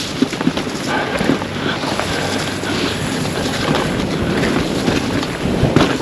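Pivot Firebird 29 mountain bike riding down a rough trail: tyres rolling over dirt and rock, with scattered rattles and knocks from the bike, and wind noise on the microphone.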